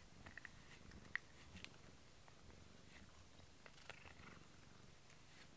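A cat purring faintly, with a few soft clicks through it.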